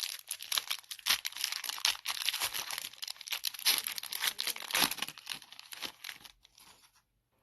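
Foil trading-card pack wrapper crinkling as it is torn open and handled, a dense crackle that thins out and stops about a second before the end.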